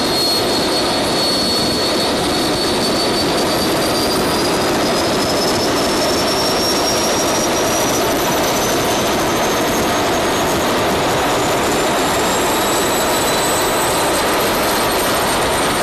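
Small jet engine running on a test stand: a loud, steady rush of noise under a high whine that climbs slowly and evenly in pitch as the engine's speed rises.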